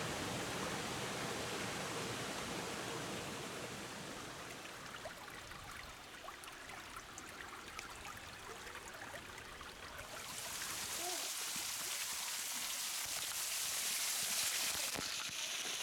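Flowing water, a steady rushing hiss. About ten seconds in it switches abruptly to a louder, brighter hiss, and it changes again just before the end.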